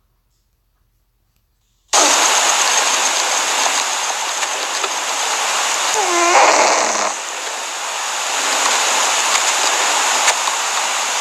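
Domestic cat snoring in its sleep: a steady, hissing breath noise starts suddenly about two seconds in, with a pitched snore that bends in pitch around six seconds in.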